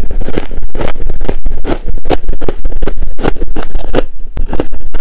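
Close-miked chewing of a mouthful of soft shaved frost ice: a dense run of rapid, irregular crunches, with a brief lull about four seconds in.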